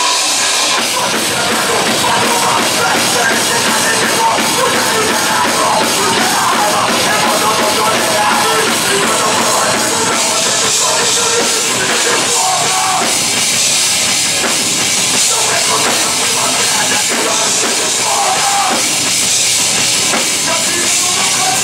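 Hardcore punk band playing live: distorted electric guitar and bass over fast drumming with cymbals, and vocals into a microphone, loud and without a break.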